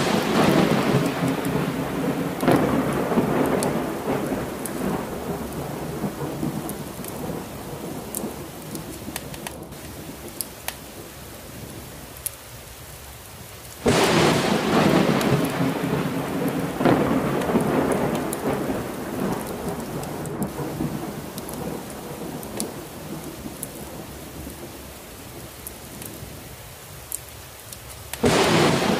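Thunderstorm: heavy rain falling steadily, with thunder peals that break in suddenly about halfway and again near the end, each rumbling away over several seconds; the opening is a peal already dying away.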